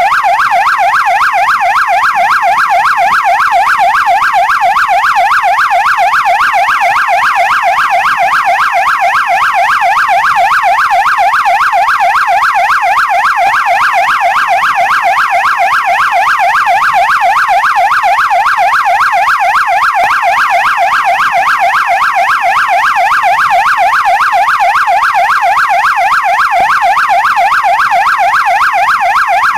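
Police siren in fast yelp mode: a loud, steady wail sweeping rapidly up and down in pitch, about three sweeps a second, with no change in pace.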